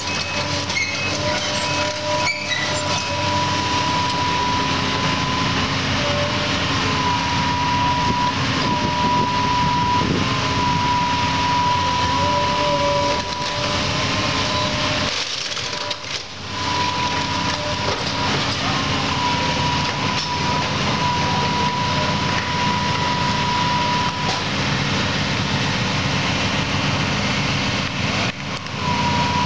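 Case tracked excavator running steadily while it demolishes a wood-framed building, with a steady high whine over the engine that wavers and breaks off now and then. The noise drops out briefly about halfway through.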